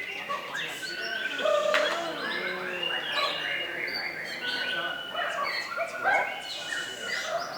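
Many caged songbirds singing at once in a songbird contest: a dense, continuous mix of overlapping chirps, whistles and trills.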